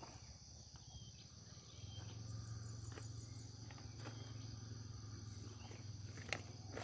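Field insects chirring in a steady high drone, with a few faint short chirps and clicks. A low steady hum joins about two seconds in.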